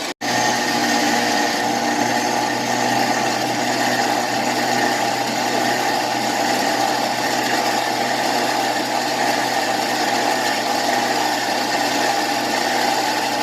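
Off-road vehicle engine running steadily at a constant speed, cutting in abruptly just after the start.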